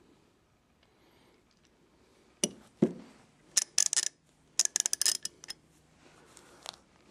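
Chrome steel hand tools handled and set down on a cloth-covered table: a knock and a thud about two and a half seconds in, then two quick bursts of sharp metallic clicking and clinking, and one more click near the end.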